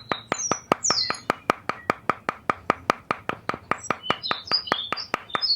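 Sharp, evenly spaced clicks or taps, about five a second, with birds chirping over them.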